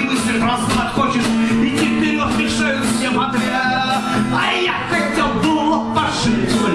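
A man singing to his own strummed acoustic guitar, a steady rhythmic strum under the vocal line.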